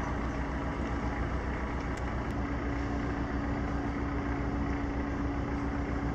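Steady mechanical hum: a constant low drone with one steady tone above it.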